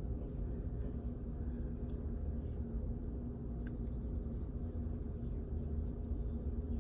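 Steady low rumble with a constant low hum underneath.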